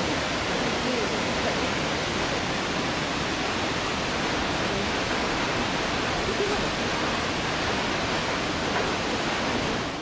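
Steady rush of falling water from Nachi Falls, a tall single-drop waterfall, fading out at the very end.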